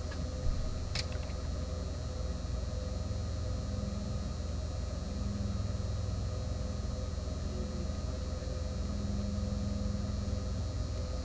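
Steady low electrical hum of the room, with one short click about a second in.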